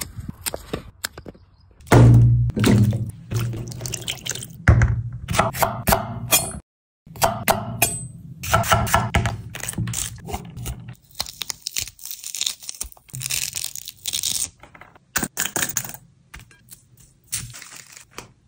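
Close-up okra preparation sounds: quick clicks of pruning shears snipping okra pods, then heavy knocks and crunchy cracking as the pods are cut and split on a wooden chopping board, and a light pour of spice from a packet near the end.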